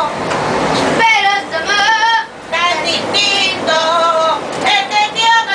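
A woman singing unaccompanied in a high voice inside a moving city bus, in phrases with short breaths between them, with the bus's noise underneath.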